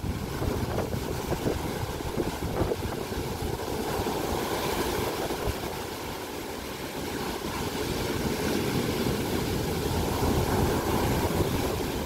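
Storm surf breaking on a sandy beach and among large boulders: a continuous rushing wash of waves that swells a little louder in the later seconds as the breakers run up the sand.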